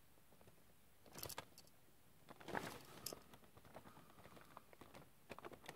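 Faint clicks and rustling of a plastic Rockman EXE Blues Soul action figure being handled as armour parts are fitted on: a few small knocks about a second in, a louder cluster of clicks two to three seconds in, then scattered light ticks.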